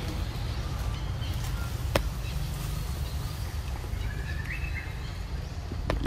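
Outdoor forest ambience: a steady low rumble, a single sharp click about two seconds in, and a few faint bird calls between about four and five seconds in.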